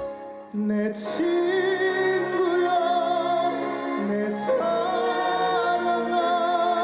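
Instrumental passage of a slow ballad: a sustained, wavering melody line with vibrato over a steady accompaniment. There is a short drop in level about half a second in, and new phrases begin about a second in and again about four and a half seconds in.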